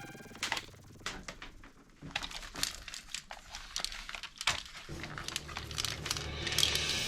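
Plastic crinkling and rustling with many small irregular clicks and taps, as toy guns are handled in their plastic packaging. It pauses briefly about two seconds in.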